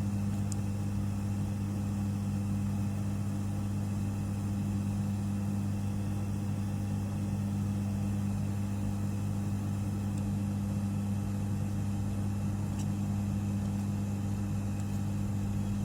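Steady low electrical hum of running soldering-bench equipment while a SIM card connector is heated and lifted off a circuit board, with a faint tick or two.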